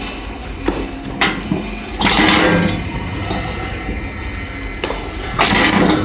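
Wood-processing machine running, with repeated rushing noise bursts about a second long, one about 2 s in and another about 5.5 s in, and a few sharp knocks between them.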